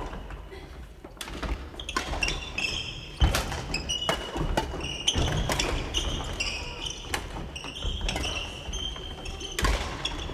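Badminton play on a wooden sports-hall floor: sharp knocks of rackets hitting shuttlecocks and feet landing, mixed with repeated short sneaker squeaks, all echoing in a large hall.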